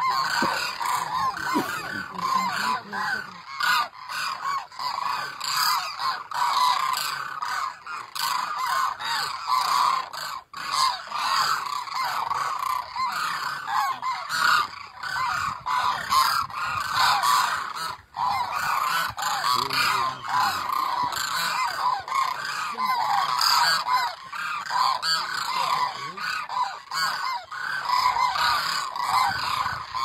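A large flock of cranes calling overhead: many overlapping calls in a dense, constant chorus, with two brief drops around ten and eighteen seconds in.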